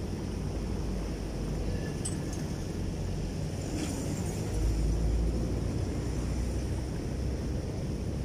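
Low, steady rumble of wind on the microphone, swelling slightly about four and a half seconds in, with a faint click about two seconds in and another near four seconds.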